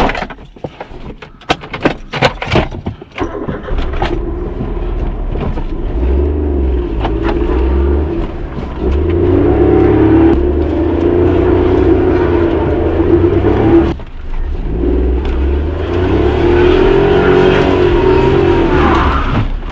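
A few sharp clicks and knocks, then an engine running steadily, its pitch rising and falling a little, with a short dip partway through.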